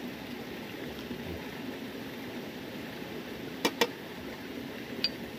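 Open wood fire with a pot boiling on it: a steady low hiss, broken by two sharp cracks close together about three and a half seconds in and a single crack near the end.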